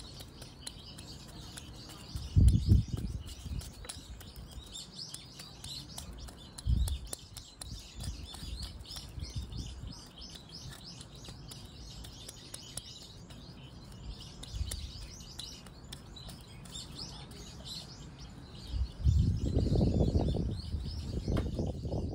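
Small birds chirping busily and continuously in the background. A few low thumps come about two and a half and seven seconds in, and a longer spell of low rustling and bumping near the end, the sound of the root ball and tools being handled.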